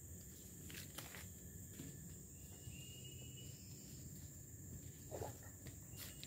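Forest ambience: a steady high-pitched insect drone, with footsteps and scattered clicks on dry leaf litter. A faint short whistle comes about three seconds in, and a brief louder noise near the end.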